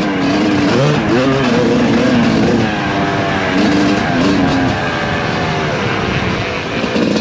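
Suzuki RM250 two-stroke motocross engine under riding, its revs repeatedly climbing and dropping as the rider works the throttle and gears.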